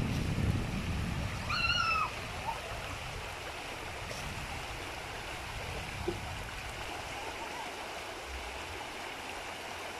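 Creek water flowing steadily, with a short high-pitched call about a second and a half in.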